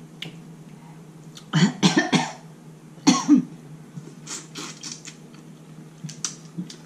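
A woman coughs in two short bouts about a second apart, then makes small wet mouth clicks and smacks as she eats seafood boil with her fingers.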